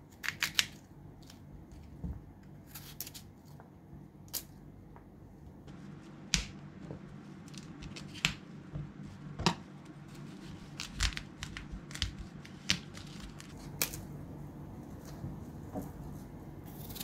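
Cauliflower and broccoli florets being split with a knife and pulled apart by hand: an irregular series of short, crisp snaps and cracks as the stems break, over a low steady hum.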